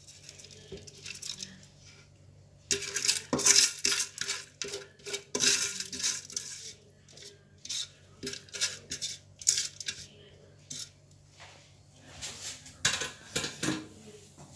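Metal steamer pot knocking and scraping against a glazed clay serving plate as steamed vermicelli is tipped and pushed out of it by hand. It starts about two and a half seconds in and goes on as irregular bursts of clatter and rustle.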